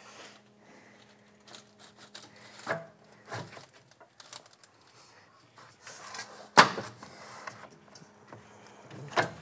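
A truck's AC condenser and its plastic mounting clips being worked loose from the radiator by hand: scattered light clicks and knocks, with a sharp clack about six and a half seconds in and another near the end.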